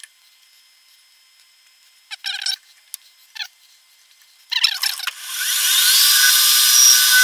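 A few light metal clicks and clatters as the workpiece is handled and clamped in the metal lathe, then about five seconds in the lathe starts and spins up, its whine rising in pitch and settling into a steady run.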